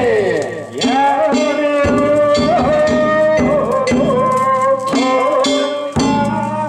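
Danjiri float festival music: drum and gong strikes about twice a second under a held melody that slides and wavers in pitch, with a falling glide at the start.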